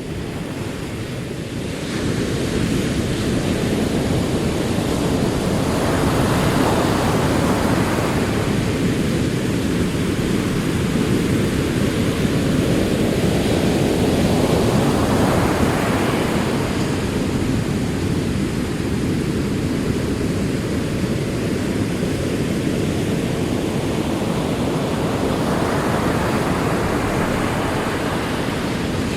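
Ocean surf: a steady deep rumble of rolling waves, with the hiss of breaking water swelling up and fading away three times as waves wash in.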